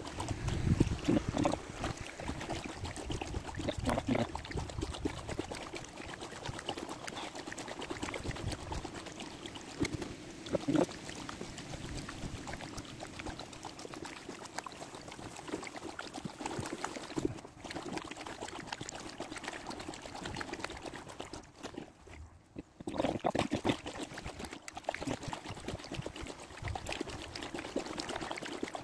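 Kayak paddle strokes: the blades dipping into calm water, with water trickling and dripping off the paddle.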